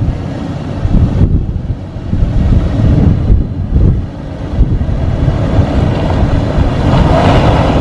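Toyota 4Runner's 4.0-litre V6 running under load as the SUV crawls over rough trail, a loud steady low rumble with wind buffeting the microphone; it gets a little brighter and fuller near the end.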